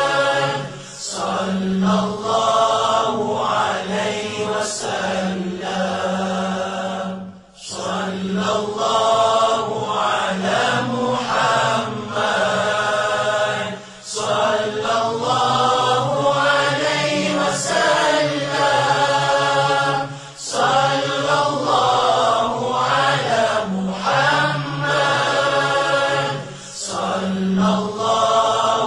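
Selawat sung in Malay and Arabic: a melodic chant of blessings on the Prophet Muhammad, in long phrases with a short breath-break roughly every six and a half seconds, over a steady low drone.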